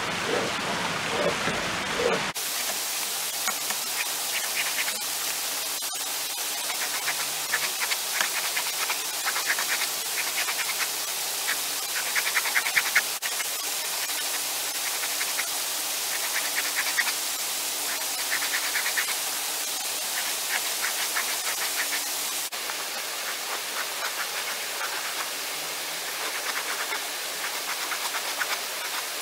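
Damp deer hide being stretched and worked by hand, giving faint, repeated scratchy rubbing every second or two, over a steady rushing noise like running water. The noise changes abruptly about two seconds in.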